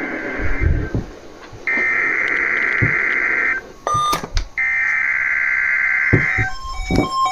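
NOAA Weather Radio SAME header for a Required Weekly Test: harsh digital data bursts. The tail of one burst is followed by two more of about two seconds each, a second apart. Near the end a weather alert receiver starts beeping in short tones as it activates.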